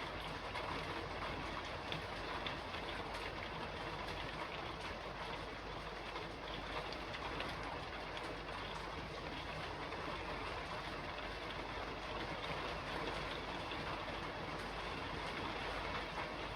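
Steady rain falling on a roof: a constant hiss of rain with many small drop ticks running through it and a low steady rumble underneath.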